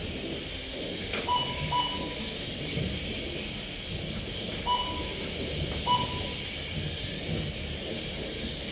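Lap-timing system beeping as micro RC race cars cross the timing line: four short beeps at a single pitch, a quick pair early on and then two single beeps a second apart, over steady background noise.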